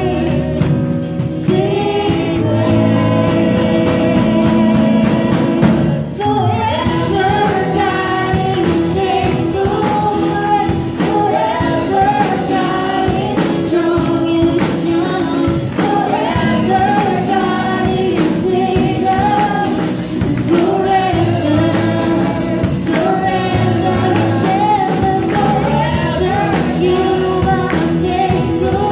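Live worship band playing: a female lead vocal over acoustic guitar, electric guitar and drum kit. About six seconds in the playing fills out, with the drums and a moving sung melody coming in over what had been held chords.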